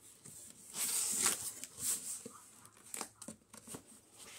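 Cardboard box flaps and foam packing being handled by hand: dry scraping and rustling in several short, irregular bursts.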